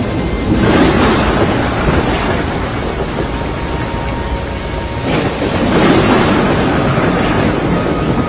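Thunderstorm noise from a tornado: heavy rain and wind with deep rumbling, swelling loudly about a second in and again about five seconds in.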